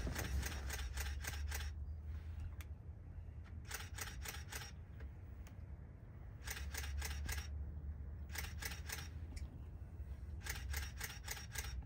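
Wild turkey tom in full strut: short clusters of sharp rattling clicks every few seconds, each with a deep low drumming hum.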